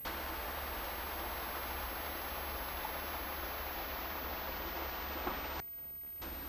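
Steady hiss with a low hum underneath, the background noise of an old film or tape soundtrack. There is a faint click about five seconds in, and the hiss cuts off abruptly shortly before the end.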